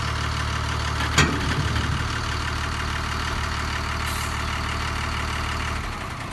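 Tata 1618 tipper truck's diesel engine idling steadily, with a single sharp metallic knock about a second in. The engine note cuts off near the end.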